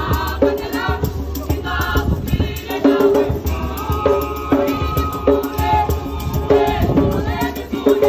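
A group of voices singing together in harmony in short repeated phrases, over a steady percussive beat with a rattling shaker sound.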